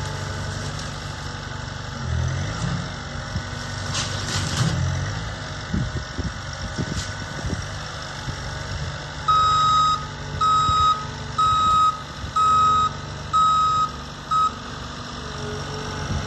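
A heavy machine's engine running steadily, with a few knocks about four seconds in. From about nine seconds in, a backup alarm beeps six times, about once a second, the last beep cut short.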